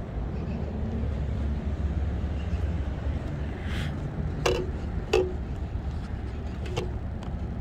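Steady low outdoor rumble of traffic and wind, with three sharp metallic clinks a little after halfway, each with a short ring.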